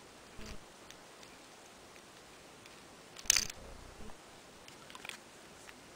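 Light clicks and taps of small plastic V-Cube 6 puzzle pieces being fitted together by hand, with one sharper click a little past three seconds in.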